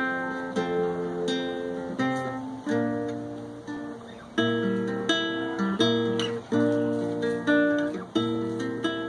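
Instrumental acoustic guitar music: chords plucked and strummed, each one struck sharply and left to ring out before the next.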